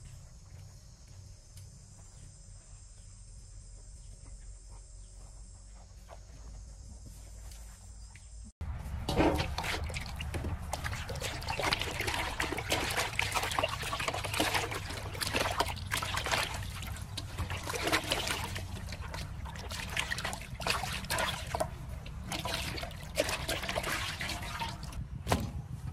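Water sloshing and splashing in a metal basin as hands scrub and turn a raw pig's head while washing it. It starts abruptly about a third of the way in. Before that there is only a faint, steady, high insect chorus.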